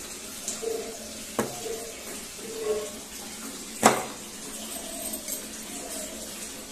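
A steel kitchen knife cutting on a bare wooden bench, giving two sharp knocks, the second louder, about two and a half seconds apart.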